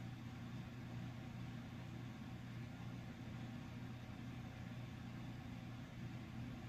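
Steady low hum with an even faint hiss: room tone.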